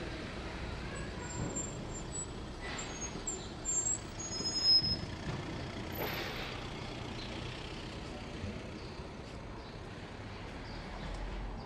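City street traffic ambience with a motor vehicle passing. A brief high squeal comes around four to five seconds in, and a short hiss follows about six seconds in.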